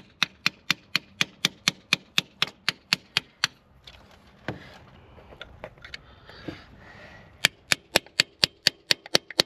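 Hammer tapping rapidly on a broken bolt stuck in an engine head, about four sharp metal taps a second, to shock it loose. The taps pause for a few seconds midway with a couple of single strikes, then start again; the bolt has not yet broken free.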